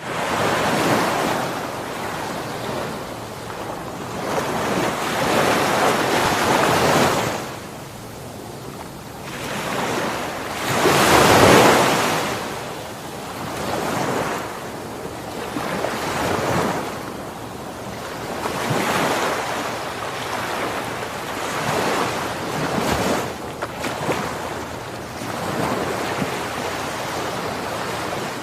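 Ocean waves breaking on a shore, a continuous wash that swells and ebbs every few seconds, with one larger wave about eleven seconds in.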